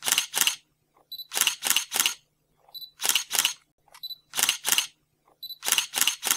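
Camera shutter sound effect: a short high beep followed by two or three quick shutter clicks, repeating about every second and a half.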